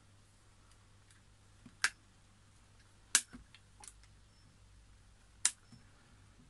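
Bonsai cutter biting into a crape myrtle branch stub: four sharp snips spread over several seconds, with fainter ticks between them.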